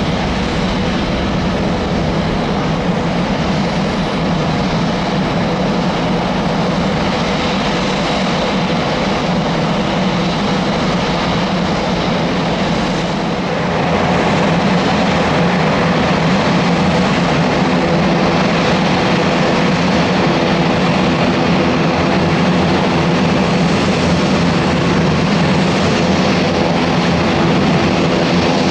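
Aircraft engines running steadily, a loud drone with a set of held tones; about 13 seconds in it gets a little louder and the tones shift.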